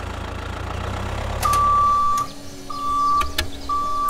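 Low tractor-engine rumble that fades out about halfway through, followed by three long electronic beeps at one steady pitch, with a few sharp clicks among them.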